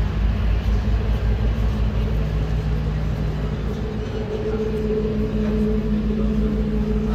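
A river ferry's engine drones steadily, holding a few low tones, over a fluttering low rumble of wind on the microphone.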